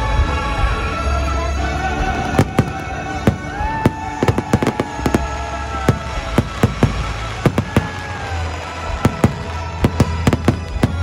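Aerial fireworks going off in quick succession, with sharp bangs coming thick and fast from about two seconds in. Show music with long held notes plays through loudspeakers beneath them.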